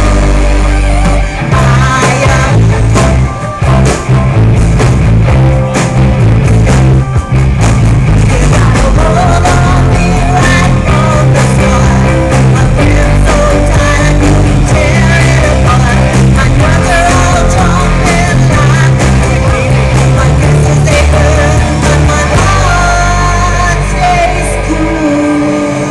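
Live rock band playing loud: a woman singing lead over electric guitars, keyboard and drums, easing off slightly near the end.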